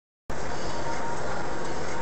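Steady road and engine noise of a moving car, as a dashcam inside it records it, cutting in abruptly about a quarter second in after dead silence.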